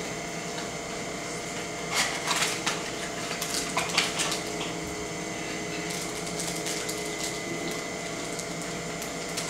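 Trading cards and their pack being handled on a table: scattered short rustles and clicks of card stock and packaging over a steady room hum.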